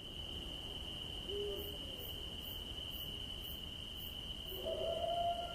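Night-forest ambience sound effect: a steady high drone of insects, with a short owl hoot about a second and a half in. Near the end a long, held wailing call begins.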